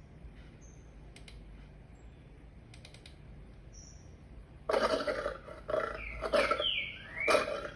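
Lion roaring played back through computer speakers: a few seconds of quiet with a few faint clicks, then, about two-thirds of the way in, a series of loud, short roaring calls, the last one rising in pitch.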